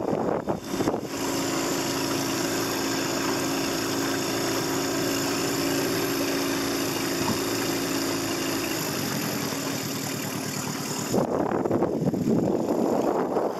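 1999 Mariner 15 hp short-shaft outboard idling steadily, its tone changing about nine seconds in. Wind rushes on the microphone in the first second and again near the end.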